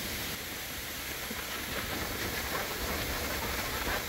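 A forest stream running over rocks: a steady hiss of flowing water.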